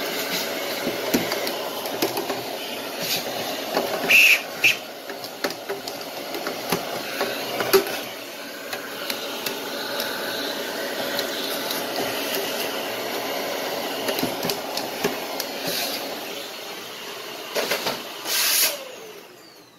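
Brush scrubbing dust off the inside of an electronic chassis and circuit board: a steady rough brushing hiss with scattered clicks and knocks, and a louder burst near the end.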